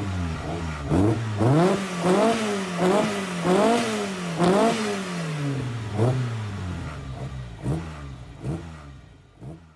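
Mitsubishi Colt Galant GTO engine free-revving in a run of quick throttle blips. Each rev rises sharply and drops back, several a second at first, then a few more spread out as the sound fades away at the end.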